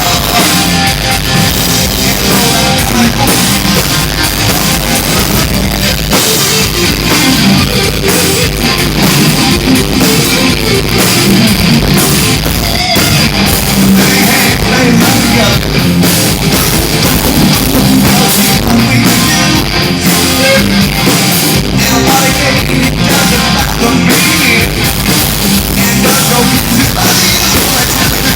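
Live rock band playing loud, with drum kit and electric guitar.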